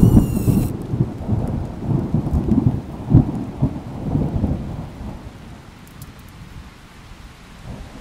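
A loud clap of thunder that breaks right at the start and rolls on for about five seconds before fading, over steady rain.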